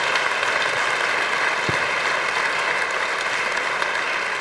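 Audience applauding, a steady, even clapping from many hands.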